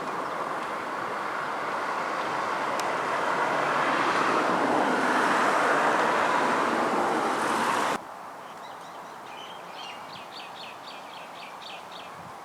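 A steady outdoor rushing noise, growing a little louder, that cuts off abruptly about eight seconds in. After it, a quieter background with a quick run of short, high chirps like a small bird's call.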